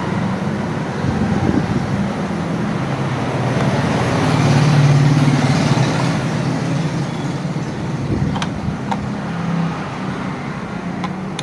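Steady low rumble like passing road traffic, swelling about five seconds in, with a few light clicks near the end.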